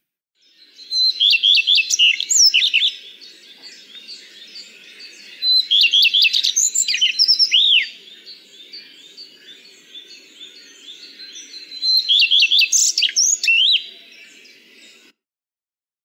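Common redstart singing: three short song phrases several seconds apart, each opening with a few quick repeated high notes and ending in a varied twitter.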